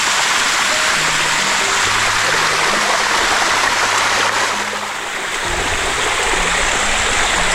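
Water of a cascading waterfall rushing steadily over the rock, close by; the sound dulls a little about five seconds in as a low rumble comes up.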